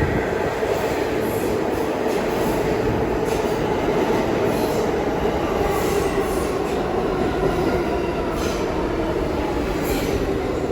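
R68 subway train on the New York City D line running on the rails, a steady rumble of wheels and motors.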